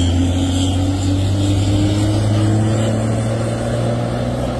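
Heavy truck's diesel engine running as it hauls a lowboy trailer slowly past: a steady low drone, its pitch creeping up slightly and its level easing off toward the end.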